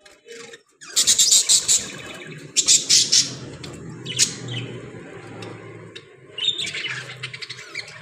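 A cage of budgerigars chattering and squawking, with loud clusters of calls about a second in, around three seconds, and again near the end.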